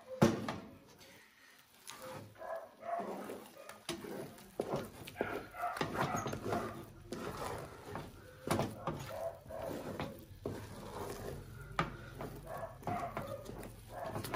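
A wooden spoon stirring and working stiff water fufu in an aluminium pot, with repeated sharp knocks against the pot. The loudest knock comes just after the start. An animal calls over and over in the background.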